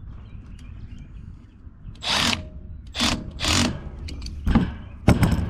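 Power drill driving the blower motor's mounting bolts tight in about five short spurts of a fraction of a second each.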